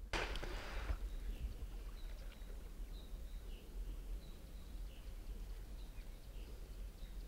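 Riverside ambience: faint, short bird chirps about once a second over a steady low rumble, opening with a brief, second-long rushing hiss.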